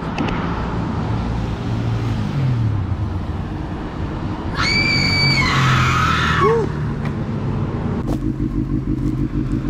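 Motorcycle engines idling, with a loud, steady high-pitched squeal lasting about two seconds near the middle. About eight seconds in, a low, evenly pulsing idle takes over.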